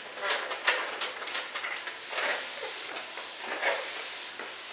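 Spray mop's flat microfiber pad swishing in repeated irregular strokes over a wet, soapy tiled floor.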